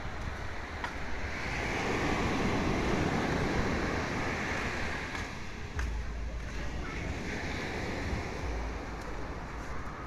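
Ocean surf breaking and washing up a sandy beach, swelling about a second and a half in and easing off after about four seconds, then swelling again near the end. Wind rumbles on the microphone in the second half.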